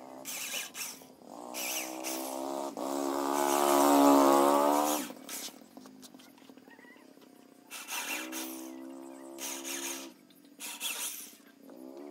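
Cordless drill driving the screws that hold a subwoofer box's mesh grille: several runs of motor whine, one to two seconds each, with the pitch bending as the screws tighten, the longest about three seconds in. Short hissy bursts fall between the runs.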